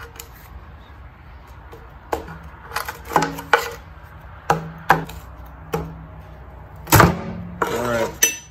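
Steel pry bar clinking and knocking against the edge of a Jaguar V12's cast oil pan sandwich plate as it is levered loose. The plate is glued on with silicone sealant. About eight sharp metallic clinks, some leaving a short ringing tone, the loudest about seven seconds in.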